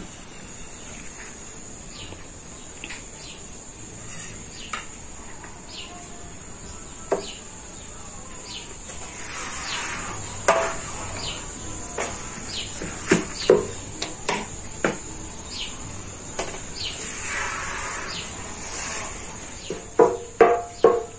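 A steady high insect drone with scattered chirps and light clicks. Near the end comes a quick run of knocks as the wooden rod lifts and turns a yufka flatbread on the steel sac griddle.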